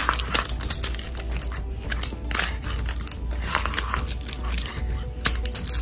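Plastic wrapping crinkling and crackling as it is picked and peeled off a metal Poké Ball tin, in irregular sharp crackles.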